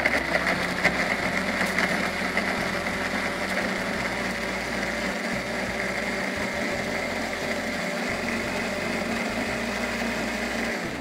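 Electric blender running steadily at high speed, its motor whirring as it grinds a thick, wet spice paste of shallots, garlic, lemongrass, galangal and lime leaves.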